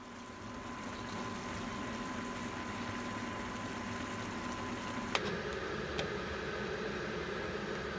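Beef bulgogi with enoki mushrooms and green onion simmering in a frying pan, a steady bubbling hiss. About five seconds in it cuts to a different steady hum, with a small click a second later.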